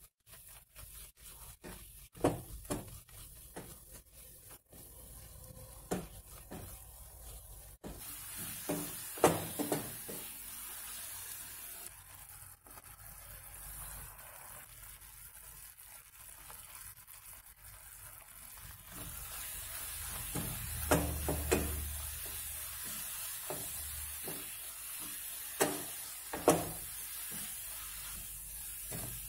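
A wooden spatula stirring and scraping a grated coconut and jaggery filling in a nonstick kadai, with irregular knocks against the pan. A steady sizzle of the mixture cooking comes in about a quarter of the way through and grows louder later on.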